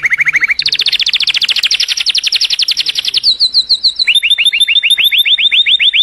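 Domestic canary singing a fast, loud series of trills, each made of quick repeated notes, switching to a new trill three times: a lower roll, then a higher and louder one, a short slower run, and a trill of falling notes.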